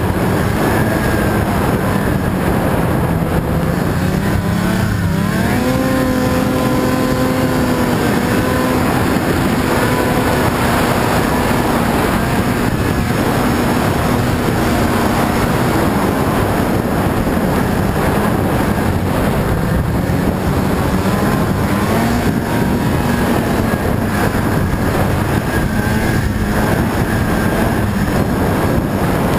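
Snowmobile engine running at trail speed, its note dipping and climbing back about five seconds in and easing off a little around the middle, over a steady rushing noise from the ride.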